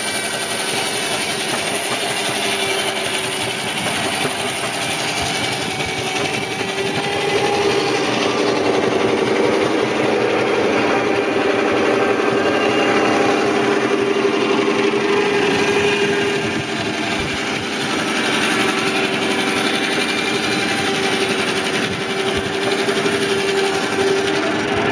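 Steam traction engine driving a large circular saw bench by a long flat belt: the spinning saw blade, belt and engine running together with a steady tone, growing louder about seven seconds in.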